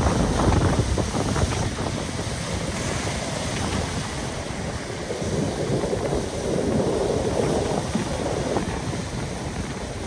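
Heavy surf breaking on a pebble beach: waves crash and wash up over the stones in a steady noisy roar, loudest at the start with another surge about six to eight seconds in. Wind buffets the microphone underneath.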